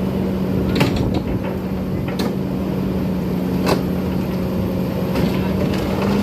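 Excavator's diesel engine running steadily, with a few sharp knocks about a second, two seconds and nearly four seconds in.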